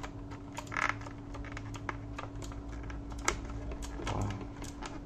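Irregular plastic clicks and knocks from a mechanical keyboard and its cable being handled, over a steady low hum.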